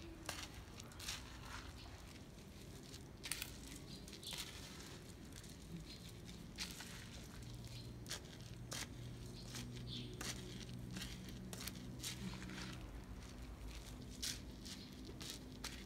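Sticky rice and beans being stirred with a plastic paddle in a stainless steel colander: irregular rustling and small clicks of the grains and the paddle against the metal mesh.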